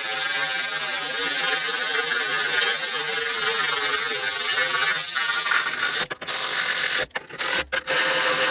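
Power ratchet running bolts in on a plate under a truck, a steady motor-and-ratchet noise for about six seconds, then stopping and starting in short bursts near the end as the bolts run down.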